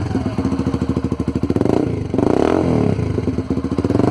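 Yamaha Fazer 150's single-cylinder engine, fitted with a Roncar Aluminium sport exhaust, idling with a steady exhaust beat. About halfway through it is given one quick rev that rises and falls, then it settles back to idle.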